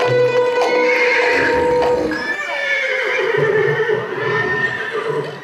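Music holding a steady note for about two seconds, then a horse whinnying: a long, wavering neigh that rises and falls in pitch.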